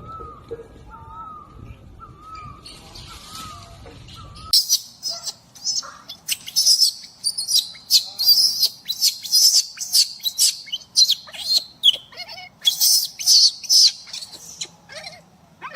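A short whistled call repeating about every half second. Then, after a sudden cut about four and a half seconds in, many birds chirp at once in quick, high-pitched, overlapping chirps.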